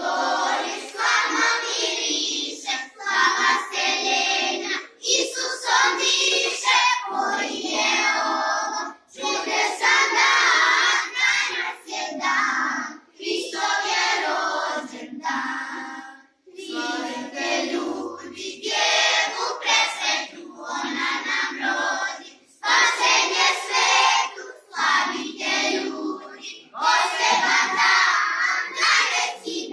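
A group of children singing a Christmas song together in Serbian, in phrases with brief pauses for breath.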